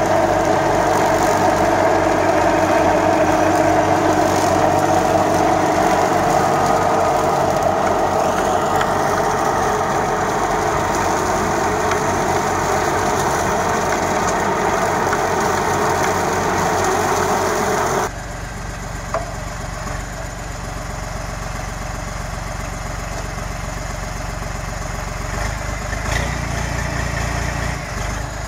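Holder A55 tractor's diesel engine running with a Röll double-drum rotary mulcher spinning as it cuts grass. The sound drops abruptly and turns duller about two-thirds of the way in.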